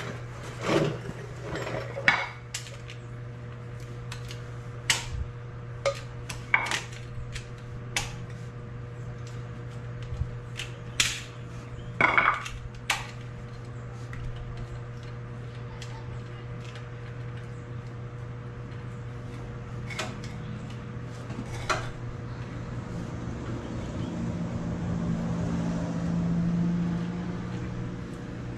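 Metal tools and suspension parts clinking and clanking in scattered sharp knocks, most of them in the first half, over a steady low hum.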